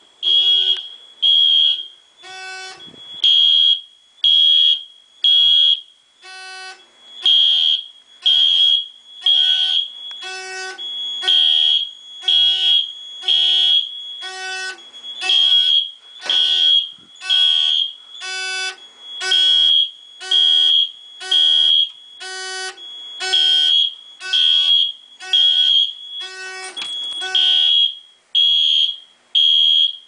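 Wheelock MIZ fire alarm horn sounding in evenly repeated blasts, about one a second. The system is in alarm after the smoke detector was set off with its test button.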